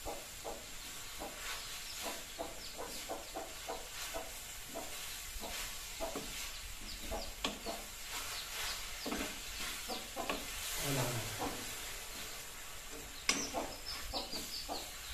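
Metal spoon stirring and scraping chopped greens in a steel pan on a gas stove, over a steady sizzle. About 13 seconds in, water poured into the hot pan sets off a sudden loud hiss.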